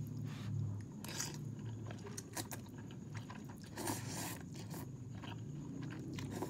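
A person slurping instant ramen noodles off a fork in several short, noisy slurps.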